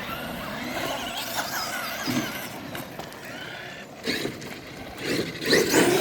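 Electric RC monster trucks driving, their motors whining and rising and falling in pitch with the throttle over tyre and gravel noise, louder for a moment near the end.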